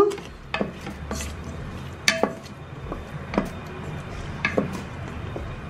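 Wooden spatula stirring rice and hot water in the inner pot of a Geek Robocook electric cooker, with irregular knocks against the pot about once a second.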